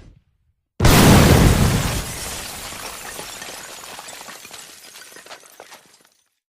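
Rocket-propelled grenade explosion: a sudden blast about a second in, then a long fading rumble scattered with crackles and clinks of shrapnel and debris, dying out near the end. The tail of an earlier blast fades away at the very start.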